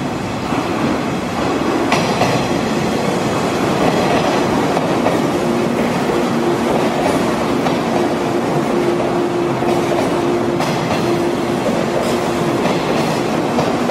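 Bonnet-nosed JNR limited express electric train rolling along a station platform, with wheels clacking over the rail joints. From about a third of the way in, a steady low whine runs under the rumble.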